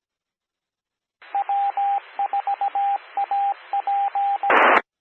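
The W4AP repeater's automatic Morse code identifier: a single steady tone over the hiss of the open radio carrier keys out W-4-A-P (dot-dash-dash, four dots and a dash, dot-dash, dot-dash-dash-dot). It ends in a short burst of static, the squelch tail as the repeater drops.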